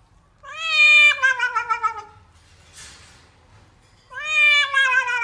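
Domestic cat meowing twice: two long, drawn-out meows that each fall in pitch, the first starting about half a second in and the second about four seconds in.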